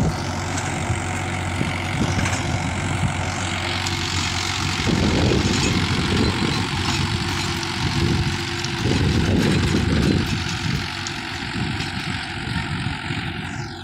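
Mahindra 415 tractor's diesel engine running steadily under load while its rear-mounted rotavator churns the soil, the noise swelling louder twice in the middle.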